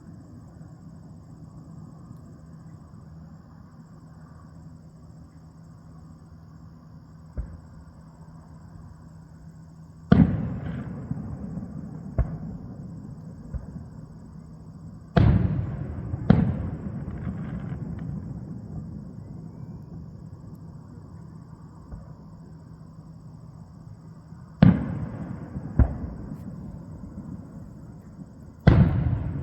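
Aerial fireworks shells bursting: a string of loud booms a few seconds apart, some in close pairs, each trailing off in a fading rumble. A steady low hum runs underneath.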